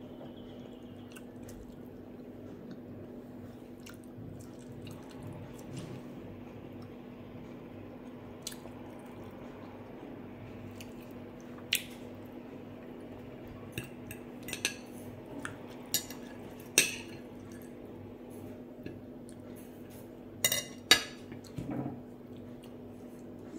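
Metal knife and fork clinking and scraping on a glass plate, with sharp clinks about twelve seconds in, a run of them a few seconds later and the loudest pair near the end. A steady low hum runs underneath.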